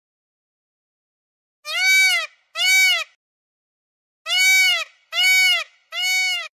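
Peacock calling: two loud calls about a second and a half in, then after a pause a series of three. Each call rises and then falls in pitch.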